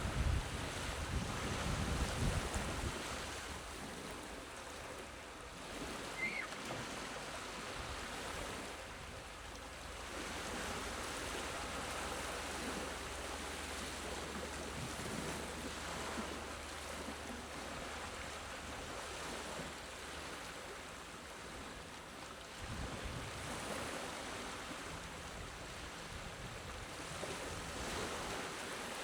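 Gentle small waves washing onto the shore, swelling and easing every few seconds. Wind buffets the microphone with a low rumble for the first few seconds.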